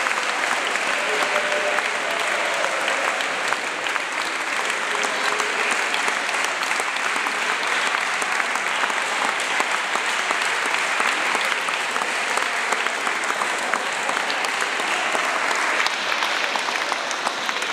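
Audience and cast applauding: steady, dense clapping that holds at an even level throughout.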